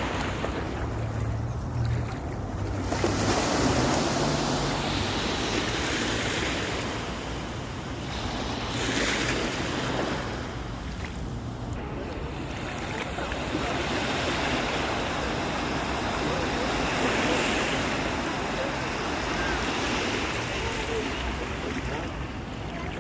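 Sea surf on a sandy beach: waves breaking and washing in, the rush swelling and easing every few seconds.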